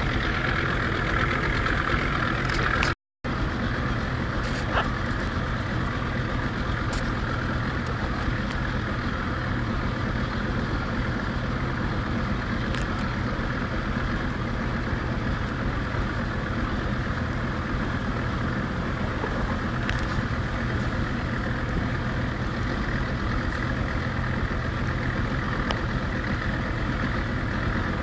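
A boat motor running steadily under way, a constant low hum with a rushing noise over it. It cuts out for a split second about three seconds in.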